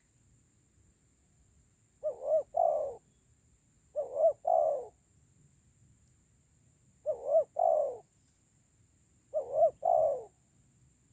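Spotted dove (tekukur) cooing four times, each call a quick short note running into a longer, drawn-out coo, with pauses of a couple of seconds between calls.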